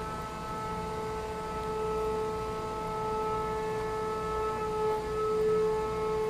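A steady machine drone holding one pitch with a low rumble beneath it.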